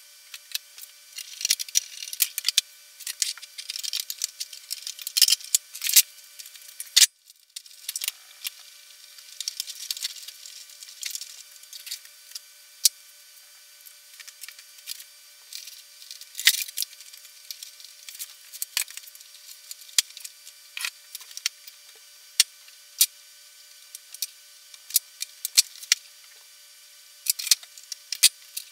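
Irregular clicks, taps and rustles of small parts, cables and hand tools being handled on a workbench while components are fitted into a plastic enclosure. A faint steady hum runs underneath, and the sound drops out briefly about seven seconds in.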